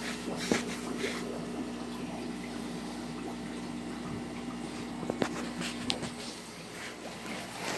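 Aquarium filtration running: a steady pump hum with trickling water, and a few light clicks.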